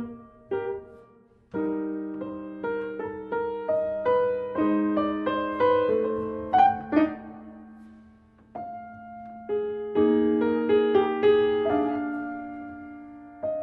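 Solo piano music: a slow, gentle melody, with each note struck and fading over held low notes and chords. It thins to a brief lull about eight seconds in before the next phrase.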